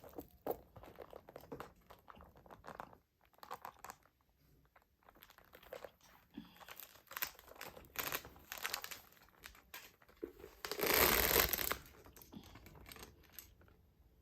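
Packaging being handled: intermittent rustling and crinkling with small clicks, and one louder crinkle lasting about a second near the end.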